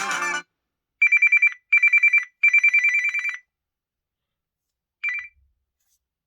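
Samsung Galaxy A54 ringtone: a high electronic trill like an old telephone ring, sounding in three bursts followed by a short fourth one. The end of a musical ringtone cuts off just before it.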